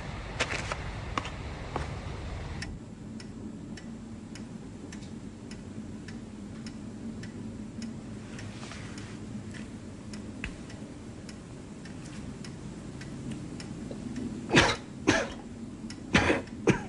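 A person coughing, two pairs of harsh coughs near the end, over a steady low hum with faint regular ticking.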